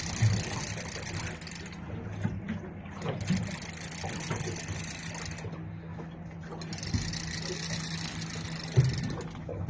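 Boat motor idling steadily, with a few short knocks from gear being handled on board.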